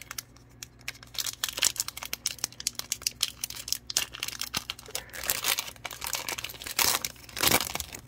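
The wrapper of a 2022 Donruss Optic football retail card pack being torn open and crinkled by hand: a rapid run of sharp crackles that grows busier near the end.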